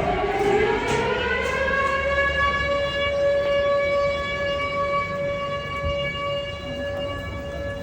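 Civil defense air-raid siren sounding a missile-attack warning. Its tone rises over the first couple of seconds, then holds a steady pitch and fades slightly toward the end.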